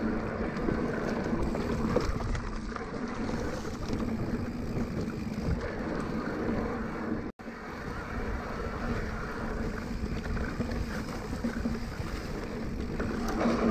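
Riding noise of a Cannondale Moterra 2 electric mountain bike on dirt singletrack: tyres rolling and rattling over the trail with wind buffeting the camera microphone, over a steady low hum. The sound cuts out for an instant a little past halfway.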